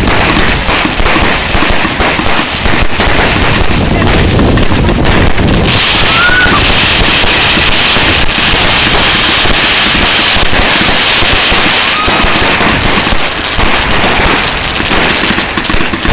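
Fireworks going off in rapid succession at close range: a dense run of bangs from bursting shells. From about six seconds in to about twelve, a loud crackling hiss rides over the bangs.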